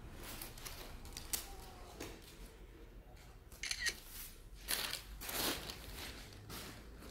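Scattered soft rustles and clicks of handling noise, with a short run of crinkling about four seconds in.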